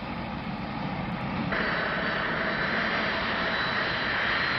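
Boeing 747 jet engines running: steady jet noise that steps up suddenly about a second and a half in to a louder, higher rushing sound with a thin whine on top.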